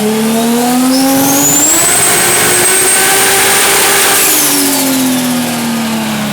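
Turbocharged 4-litre Ford Barra inline-six in a Holden VL Calais revving hard. The revs climb for about two seconds, hold high, then drop away about four seconds in, with a high turbo whine rising, holding and falling along with the engine.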